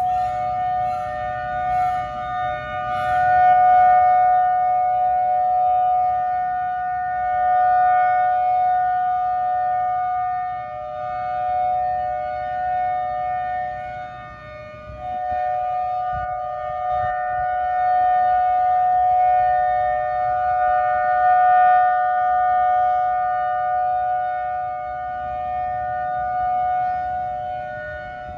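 Outdoor tornado warning siren sounding a steady two-tone alert: a held chord with no rise or fall in pitch, its loudness swelling and fading every few seconds.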